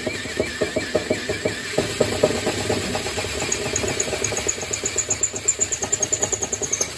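Electric drill boring through a brake rotor. The bit chatters and grabs in rapid knocks as it cuts down through the last thin wall of metal, with a high squeal over the second half.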